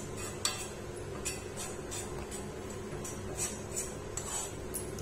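Irregular scrapes and clinks of a stirring utensil against a pan as milk is cooked down for peda, about eight strokes over a steady low hum.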